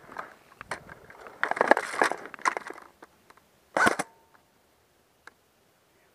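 Crunching and rustling through dry brush and ground litter with scattered clicks, then a single short sharp airsoft gun shot about four seconds in.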